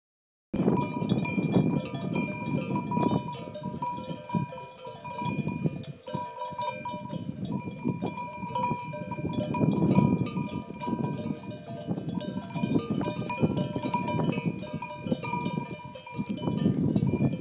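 A bell hanging from a grazing lamb's neck clinks again and again as the lamb moves, ringing at the same pitch each time. Under it, a low rushing noise swells and fades.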